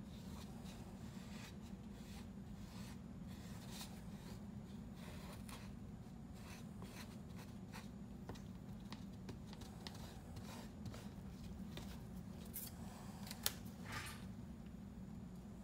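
Mixing stick scraping and dabbing epoxy paste on a paper plate: faint, irregular scratches and taps over a steady low hum, with one sharper click about thirteen seconds in.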